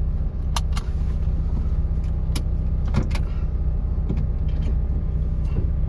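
MG TF's engine running steadily as the car moves off, heard from inside the cabin, with several short sharp clicks and knocks. These are the brakes banging a little as they free off after standing.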